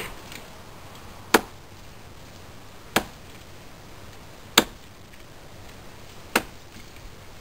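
Five sharp chopping strikes on wood, evenly spaced about one every one and a half seconds.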